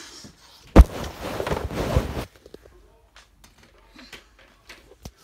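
A sharp thump, then about a second and a half of rustling and handling noise as a phone is moved quickly and comes to rest on bedding. After that it is quiet apart from a few faint clicks.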